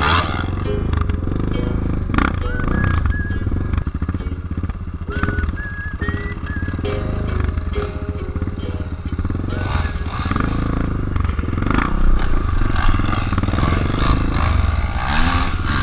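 Single-cylinder four-stroke dirt bike engines, a Kawasaki KLX 650 and a Yamaha WR450F, idling and pulling away at low speed.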